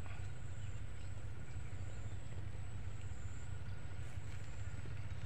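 Steady low rumble with a faint even hiss: outdoor background noise with no distinct event.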